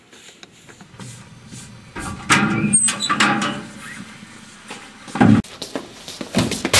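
Steel school locker being opened and handled: a string of metal clicks and knocks, with the loudest sharp knocks about five and six seconds in.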